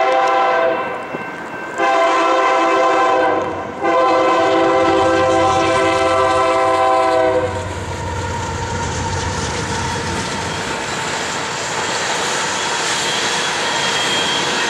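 Union Pacific diesel locomotives' air horn sounding a chord of several tones in three blasts, the third the longest. The empty coal train then passes at speed: the locomotives' engines rumble, and the wheels of the hopper cars clatter on the rail joints.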